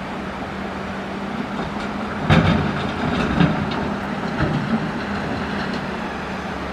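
Caterpillar excavator's diesel engine running steadily, with a loud clank about two seconds in and several lighter knocks after, as its bucket digs into coral rock.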